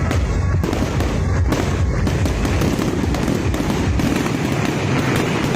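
New Year fireworks bursting and crackling in rapid, overlapping succession, with music playing underneath.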